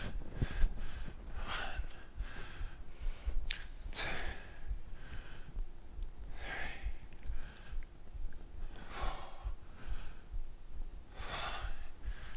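A man breathing hard from exertion during split squats: five forceful breaths, evenly spaced about two and a half seconds apart.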